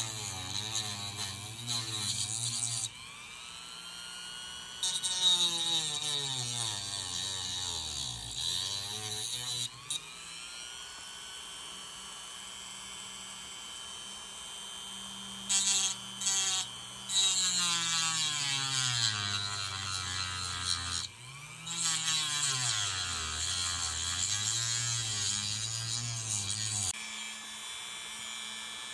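Dremel rotary tool with a cutoff wheel cutting into a small boiler-support part in several bursts of grinding. The motor's pitch sags under load during each cut and climbs back between cuts.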